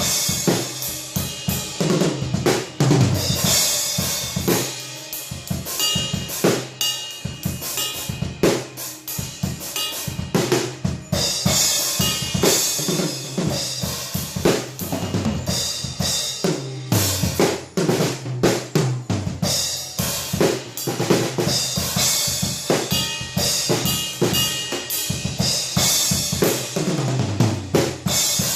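Drum kit played in a fast improvised groove: kick drum, snare and rim hits in quick patterns, with cymbal crashes coming back every several seconds. The kit is damped with Moongel pads on a cymbal and a resonant head.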